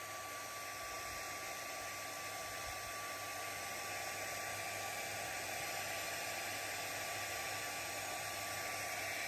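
Steady rushing air of an electric blower with a faint steady whine, growing slightly louder. It is the airflow that spins the propellers of a model plane.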